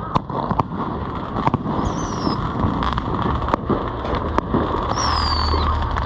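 Fireworks going off: scattered sharp pops and bangs over a constant background, with two high whistles falling in pitch, one about two seconds in and another about five seconds in.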